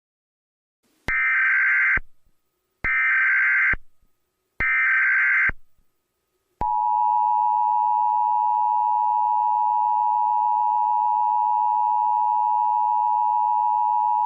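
Emergency Alert System signal: three short bursts of SAME header data screech, each just under a second, then the two-tone EAS attention signal, a steady electronic tone that sets in a little over six seconds in and holds without a break.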